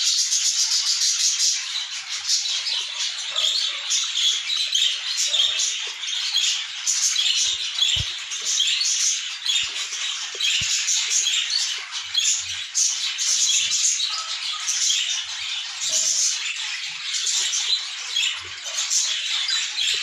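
Budgerigars chirping and squawking nonstop, many short high-pitched calls overlapping into a dense chatter.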